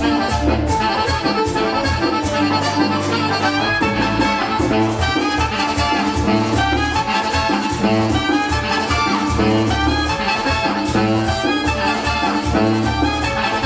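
Live merengue band playing, with a saxophone section carrying the melody over a steady, quick beat.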